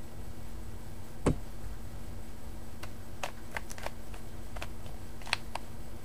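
Rubik's Cube being turned by hand: its plastic layers click irregularly as they are twisted, with one louder knock about a second in and a run of quick clicks in the second half. A low steady hum runs underneath.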